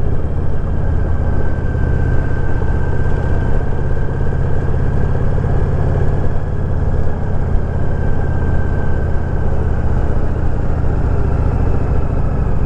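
Honda VTX 1300R's V-twin engine running steadily as the motorcycle rides along.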